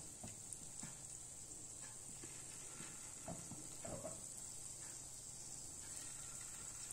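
Small balls of goli bonda batter deep-frying in hot oil: a faint, steady sizzle with a few small ticks.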